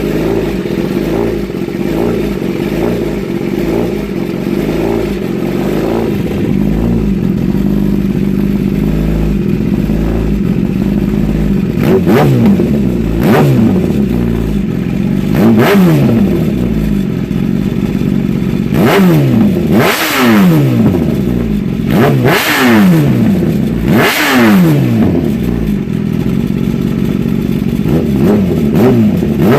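Kawasaki ZX10R sportbike's inline-four engine, breathing through an Austin Racing GP1R race exhaust with the catalytic converter eliminated. It idles steadily for about ten seconds, then a series of about nine quick throttle blips follows, each rising sharply in pitch and falling back to idle. It is loud.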